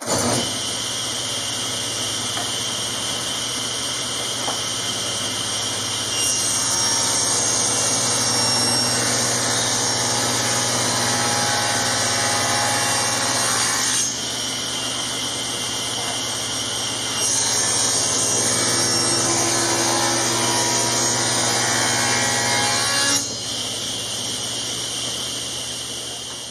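Grizzly G1023SL 10-inch table saw running steadily, with the blade set low to cut a shallow groove in a hard maple board in two passes, one along each side. The sound gets louder while the blade is in the wood, about six seconds in and again about seventeen seconds in, and drops back to the saw running freely in between.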